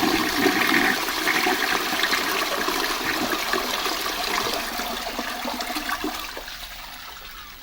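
Balterley Shell Satsuma MK2 close-coupled toilet flushing: water rushing through the pan, loud at first and then dying away gradually over the last few seconds.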